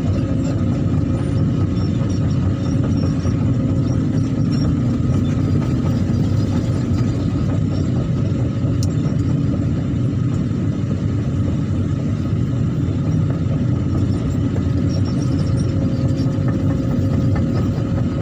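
Excavator's diesel engine running at a steady idle, a continuous low rumble with a faint steady whine above it.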